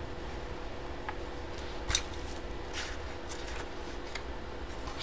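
Light taps and rustles of trading cards and their packaging being handled on a table, the sharpest tap about two seconds in and a short rustle just after, over a steady low hum.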